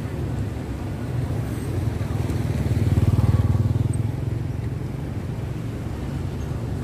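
A motor engine running steadily, swelling to its loudest about three seconds in as it passes and then fading back.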